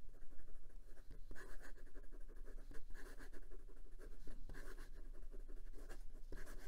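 Fine steel nib of a Penbbs 456 fountain pen writing quickly in cursive on notebook paper: an irregular run of short scratching strokes, one after another.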